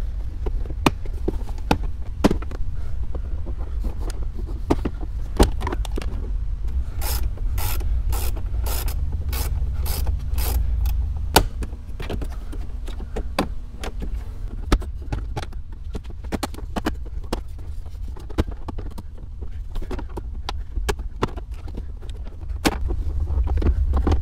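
Plastic dashboard trim being pried loose by hand and with a plastic pry tool: scattered clicks, snaps and knocks as clips let go and parts are handled. In the middle comes a run of evenly spaced clicks, a couple a second, for about four seconds.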